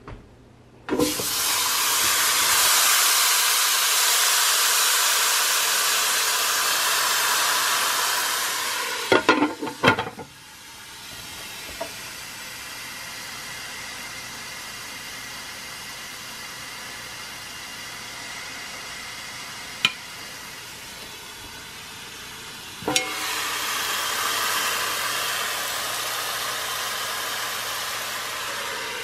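Chuck roast searing in the pot of a Cuisinart 3-in-1 multicooker on its brown/sauté setting: a loud sizzle that starts suddenly about a second in. A few knocks of the meat or utensil against the pot come around a third of the way through. The sizzle is quieter for a stretch, then louder again over the last quarter.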